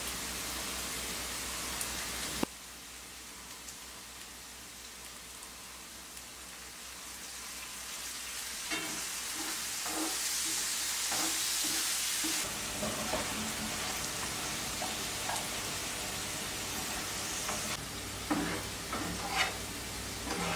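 Carrot sticks sizzling in oil in a nonstick frying pan, the sizzle growing louder about halfway through. In the second half a spatula scrapes and knocks against the pan as the carrots are stirred and turned, with a few sharper knocks near the end.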